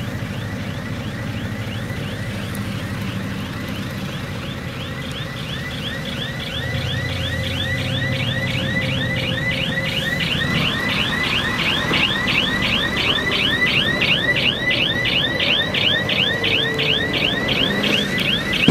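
Crawler bulldozer working under a diesel engine rumble, with a fast rhythmic squeal from its tracks, about four chirps a second, growing louder partway through.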